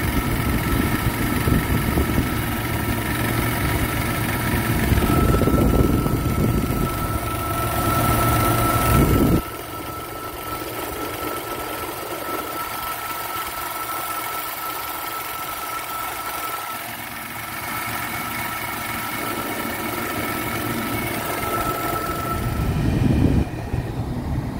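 Jeep XJ engine idling with the air-conditioning compressor running and a steady high whine over it. About nine seconds in the sound drops suddenly to a quieter steady hum, then it comes back up to the louder rumble near the end.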